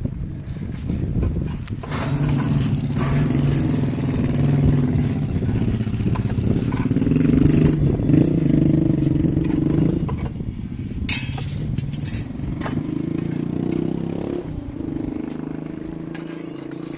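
An engine running with a steady hum that shifts in pitch a few times, and a short burst of hissing noise about eleven seconds in.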